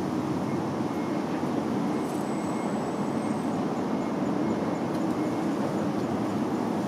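Steady low background noise, even throughout, with no distinct events.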